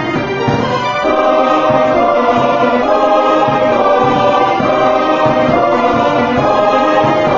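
Background music with a choir singing sustained, held notes.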